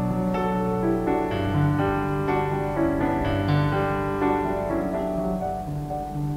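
Background piano music playing slow, held notes.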